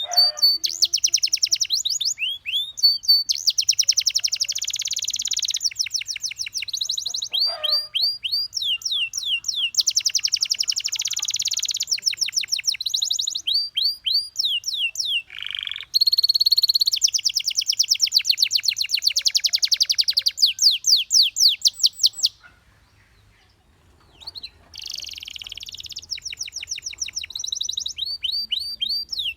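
Domestic canary singing a long song made of fast trills and runs of repeated sweeping notes, each run switching to a new phrase, with a break of about two seconds about three-quarters of the way through.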